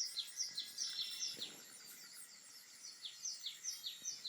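Recorded bird chirps from a cat-entertainment DVD, heard through laptop speakers. The chirps are short and drop in pitch, come about three a second, and pause briefly midway.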